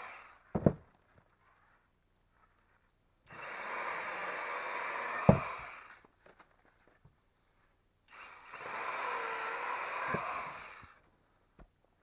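Battery-powered cordless electric chainsaw cutting through a thin spruce pole in two short runs, the motor stopping dead between cuts with no idle. A sharp knock comes about half a second in and near the end of each cut.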